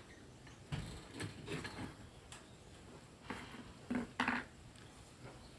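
Faint, scattered knocks and clinks of CV joint parts being handled during assembly, a little louder about 4 s in.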